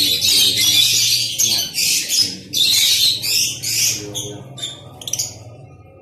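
A colony of lovebirds screeching and chattering in harsh, rapid bursts. The calls thin out after about four seconds, over a low steady hum.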